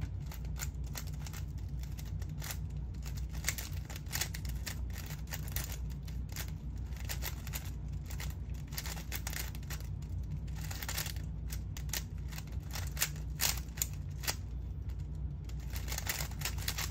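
3x3 speed cube being turned quickly by hand during a solve: a continuous stream of quick, irregular plastic clicks and clacks from its layers.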